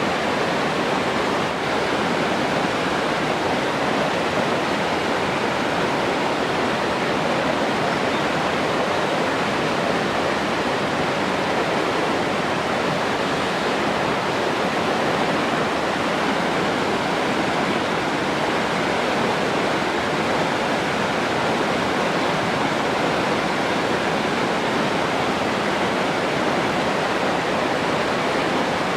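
Flowing water rushing steadily, an even, unbroken hiss that does not change.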